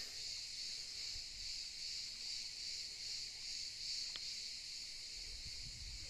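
Chorus of cicadas: a steady high-pitched drone that gently pulses in strength.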